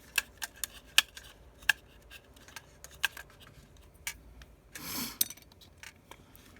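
Scattered small sharp clicks and taps of a spudger prying at the back camera's flex connector on an iPhone 6s main board, with a short rustling scrape about five seconds in.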